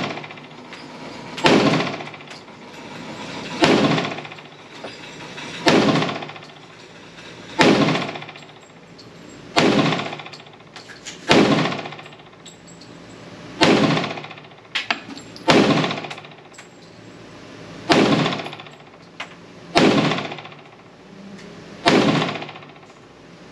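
FN FNX-45 Tactical .45 ACP pistol fired in slow, evenly spaced single shots, about one every two seconds, eleven in all, each shot followed by a short echo.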